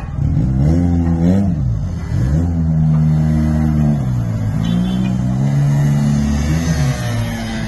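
A motor vehicle's engine accelerating: its pitch climbs twice in the first few seconds as it shifts gear, then holds steady.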